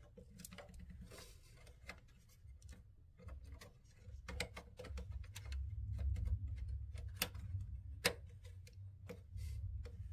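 Scattered light plastic clicks and taps as the Bambu P1P's AP circuit board is pushed and fitted into its plastic housing on the printer frame, over a low rumble of handling noise; the sharpest click comes about eight seconds in.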